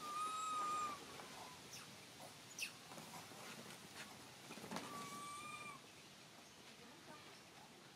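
Two drawn-out coo calls from a long-tailed macaque, each about a second long and held at a steady pitch. One comes at the start and one about five seconds in, with a few light clicks between them.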